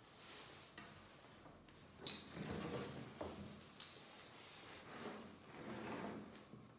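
MIG welding hose package dragged and shifted across a wooden workbench: irregular rubbing and scraping that swells and fades several times, with a few light knocks.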